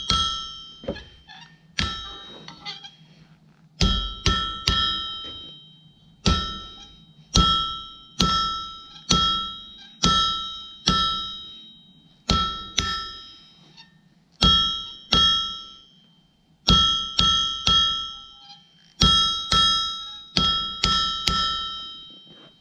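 Blacksmith's hammer striking hot steel on an anvil, each blow ringing out in a clear metallic tone, about one blow a second in runs with short pauses between, as the end of a forged door handle is shaped and dressed.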